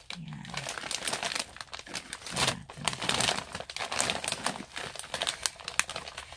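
Parcel packaging, a plastic mail bag and the wrapping inside it, crinkling and rustling in irregular crackles as it is opened by hand.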